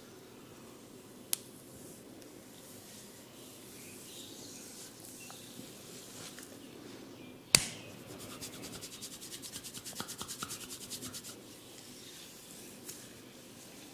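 Head massage on hair and scalp: soft rubbing throughout, with a small click early and a much louder sharp crack about halfway through. A quick run of evenly spaced ticks, about ten a second, follows for about three seconds.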